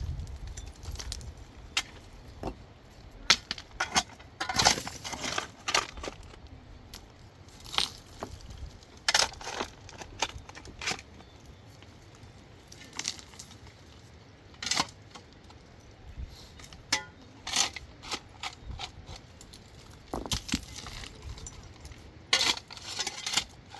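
Stones clacking and knocking against each other as they are handled and broken: irregular sharp strikes, some in quick clusters, with pauses between.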